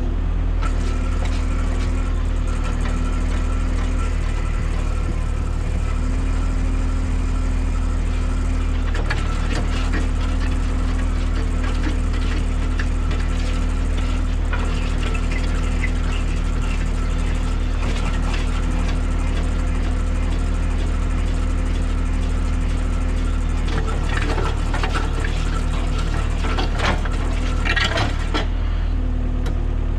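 Skid steer engine running steadily while a homemade post hole auger bores into ground full of roots and shale, with scraping and clicking from the auger biting in, heaviest near the end.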